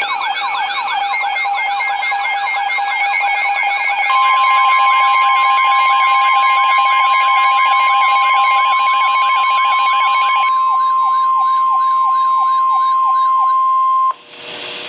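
Siren-like wailing tones sweeping down in pitch about three times a second. About four seconds in, a NOAA Weather Radio's steady warning alarm tone joins them; it cuts off abruptly near the end, leaving radio hiss.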